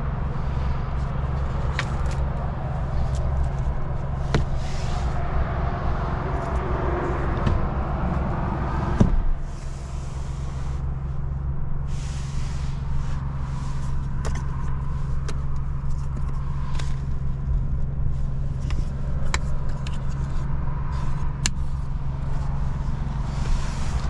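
Ford F-150 Tremor's 3.5-litre V6 EcoBoost idling, heard from inside the cab as a steady low hum. Scattered light clicks sit on top of it, with a sharper click about nine seconds in, after which the sound turns duller.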